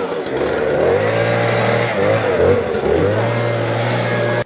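Stihl handheld two-stroke leaf blower running, its engine note falling and rising several times as the throttle is eased and opened, then cutting off abruptly at the end.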